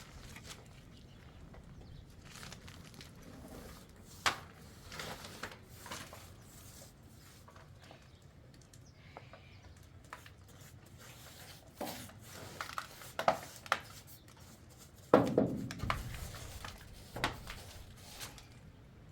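Scattered knocks, clicks and rustling over a low background hum, with a loud thump about fifteen seconds in and a cluster of knocks a few seconds before it.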